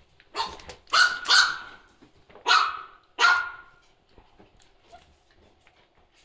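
French bulldogs play-fighting, one barking five times in quick succession over about three seconds.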